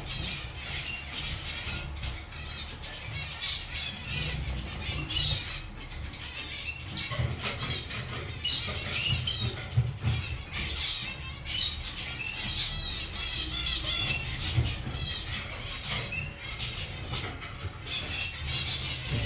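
Zebra finches calling continually: many short, nasal beeping calls from several birds overlapping, over a steady low hum.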